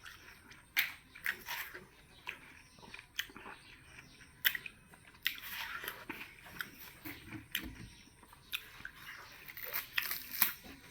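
A person biting into and chewing watermelon: a series of short, wet crunches and mouth clicks, thickest around the middle.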